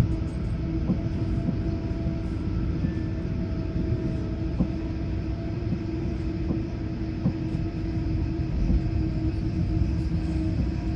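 CR200J Fuxing train running on the rails: a steady low rumble with a constant hum over it and a few faint, scattered ticks.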